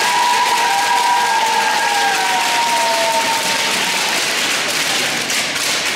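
Audience applause, an even clatter of many hands clapping, which fades out near the end. A faint held tone sits over it during the first half.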